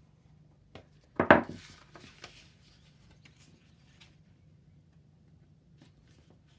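Card stock being folded and pressed flat by hand on a tabletop, with one sharp knock a little over a second in, then faint scattered taps and paper rustles.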